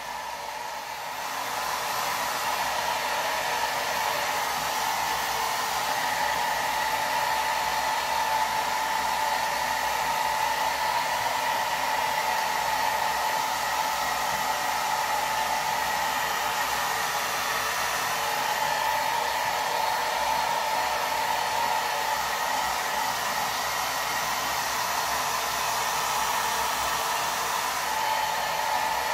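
Handheld hair dryer blowing steadily, a rush of air over a steady motor whine, growing louder over the first two seconds.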